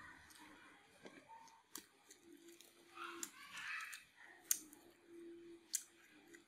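Wooden chopsticks clicking sharply a few times against each other and a metal plate while picking up strands of rice paper salad, with soft chewing sounds in between.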